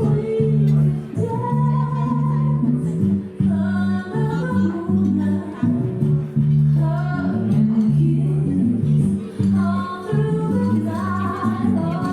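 Stage show music: a singer's voice over bass and guitar.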